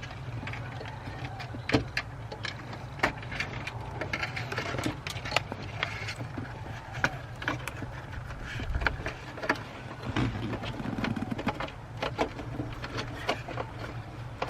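Irregular clicks, taps and light rattling from hands working wiring and plastic door parts, over a steady low hum.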